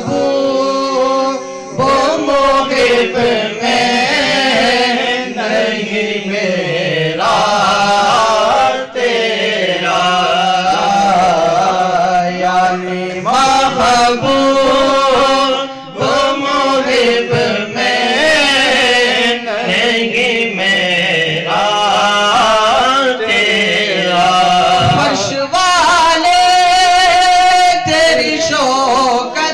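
A young man chanting an Urdu naat into a microphone, in winding, ornamented vocal lines with long held notes, over a steady low drone.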